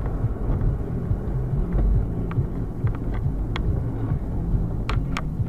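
Steady low rumble of a car driving, as picked up by a dashboard camera, with scattered sharp ticks and clicks; two louder clicks about five seconds in.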